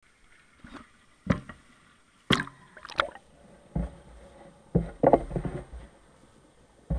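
Muffled knocks and clunks of an action camera in a waterproof housing being handled and lowered into a pond. There are about seven sharp knocks at irregular intervals of roughly a second, with a cluster of smaller clatters around five seconds in.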